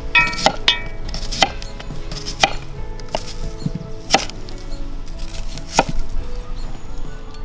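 Chef's knife slicing an onion into rings on a wooden cutting board: sharp knocks of the blade hitting the board at uneven intervals, about eight in all, three in quick succession in the first second.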